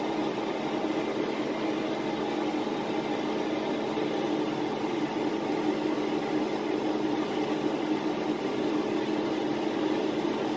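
A steady mechanical hum with an even hiss, from a fan running in the kitchen.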